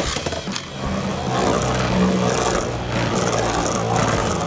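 Archer Hercules Beyblade Burst top spinning on the floor of a plastic Beyblade stadium, a steady whirring rattle of its tip against the plastic. It gets a little louder about a second in.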